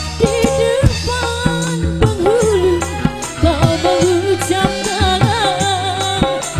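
Live dangdut koplo band: a woman sings a winding, ornamented melody over steady bass notes and a regular drum beat.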